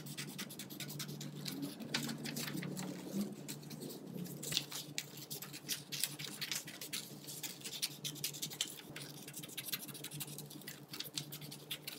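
Scissors snipping through construction paper with paper rustling, played fast-forward: a fast, dense patter of small clicks over a faint low steady hum.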